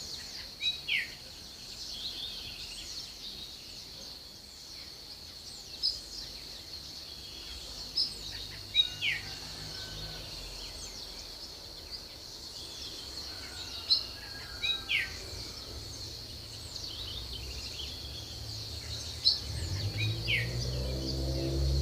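Birds chirping: short, sharp falling calls every few seconds, with fainter chirps between, over a steady high-pitched whine. Music fades in near the end.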